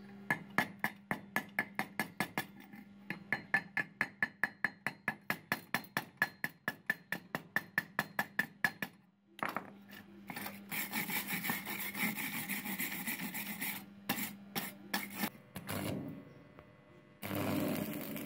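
Chipping hammer knocking slag off fresh welds on a steel chain, about four sharp, ringing strikes a second for some nine seconds. Then a steel wire brush scrubs the welds, and near the end a stick welder's arc starts up with a steady hiss.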